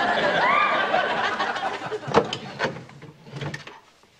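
Studio audience laughing, dying away over the first couple of seconds. Then come a few sharp knocks and clatters as a large decorative fork and spoon are taken down off a kitchen wall.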